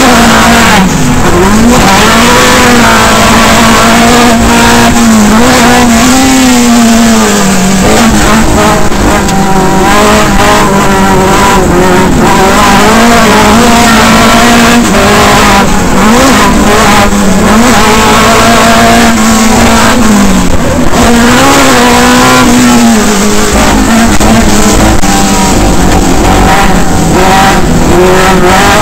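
Pro Lite short-course off-road race truck's engine heard from inside the cab, very loud, its pitch rising and falling with the throttle and dropping briefly several times as the driver lifts off.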